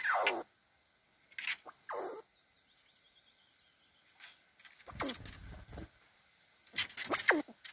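Eurasian red squirrel squealing: short, sharp calls that slide steeply down in pitch, one pair about a second and a half in, another around five seconds and a quick cluster near the end. Calls of squirrels asserting dominance.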